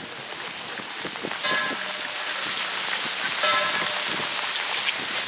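Heavy rain falling on umbrellas and plastic raincoats, a steady hiss that grows a little louder, with short ringing notes about every two seconds.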